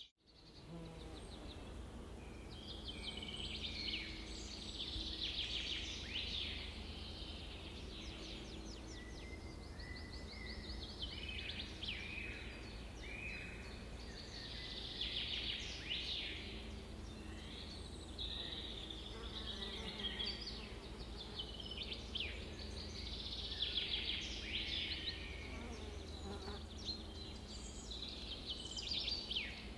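Several songbirds chirping and trilling in a continuous, layered chorus of high calls, some in rapid buzzy trills, over a faint low hum. The track cuts back in after a brief dropout right at the start.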